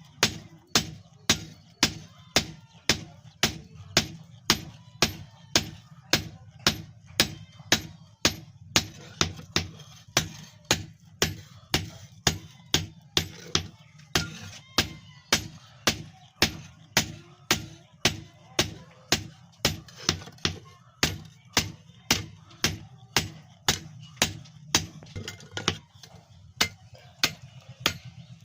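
Blacksmith's hammer striking the iron blade of a billhook on an anvil, about two even blows a second, each with a short metallic ring, over a steady low hum.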